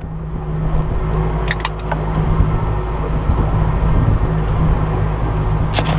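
A motor vehicle engine running steadily with a low, even hum, with a couple of faint clicks about a second and a half in.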